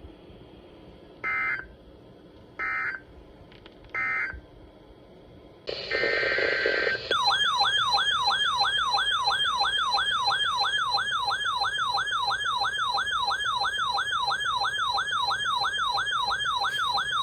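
An Emergency Alert System activation. First come three short bursts of the digital header's data tones, then a longer, hissy burst. Then a warbling, siren-like attention tone starts, sweeping up and down about three times a second for about ten seconds before the next warning is read.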